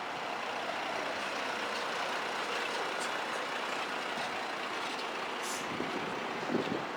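A truck running close by, heard as a steady rushing noise, with a short high hiss about five and a half seconds in.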